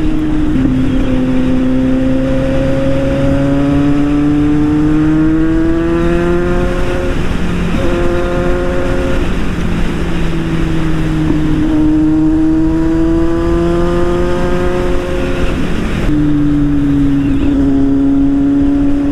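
Motorcycle engine heard from the rider's seat while riding at speed. Its note climbs slowly as the bike pulls and drops back a few times, about a second in, around the middle and near the end, over a steady rush of wind and road noise.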